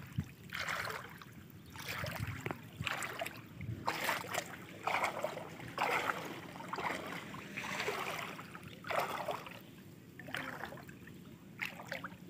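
Feet wading through shallow floodwater: a run of sloshing splashes, about one a second, as each step pushes through the water.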